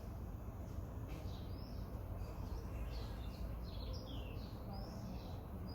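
Small birds chirping in the background: a scattered run of short, high calls, some sliding down in pitch, over a steady low rumble.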